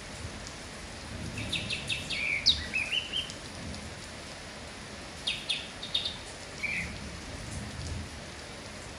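Steady rain falling, with a kapas tembak bulbul calling over it in two bursts of quick, sharp chirps and short pitched notes, the first about a second in and the second about five seconds in.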